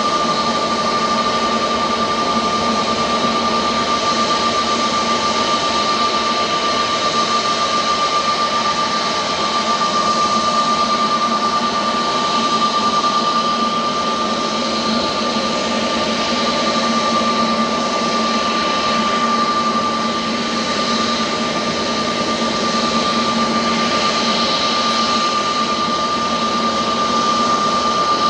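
Airbus A320neo jet engines (CFM LEAP-1A) running at a steady setting: a constant high whine over a broad rush, with no spool-up or pass-by.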